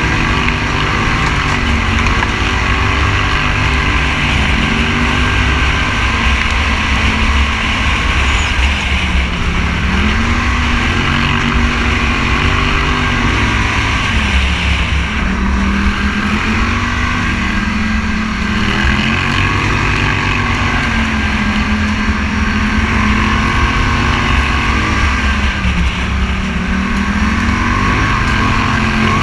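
Scrambler motorcycle engine running under way on a dirt ride, its pitch rising and falling every few seconds as the throttle is opened and closed, over a steady low rumble.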